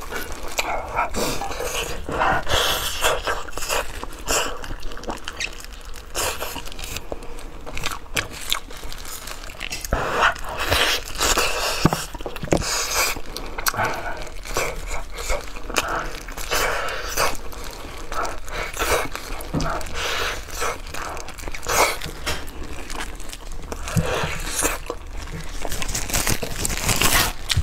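Close-miked eating of braised pig's trotters: chewing, biting and lip-smacking as a string of irregular wet clicks and smacks, with gloved hands pulling the meat apart.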